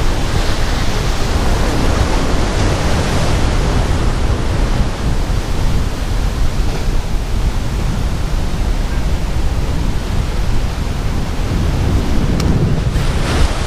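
Strong wind rumbling on the microphone over the steady rush of rough surf breaking below, with no let-up, swelling a little near the end.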